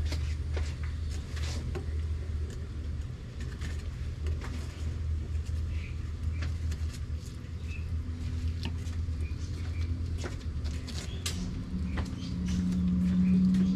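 A steady low mechanical hum, with scattered small clicks and scrapes from a fillet knife working along a fish's rib bones. Near the end a second, higher-pitched hum comes in and the overall sound grows louder.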